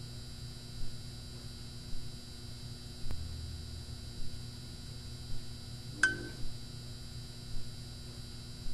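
A low, steady hum, with soft thuds about once a second. There is a faint click about three seconds in, and a sharp click with a short, high ring about six seconds in.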